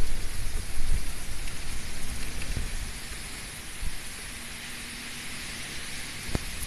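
Typhoon wind and heavy rain: a steady rain hiss with strong wind gusting on the microphone in uneven low rumbles.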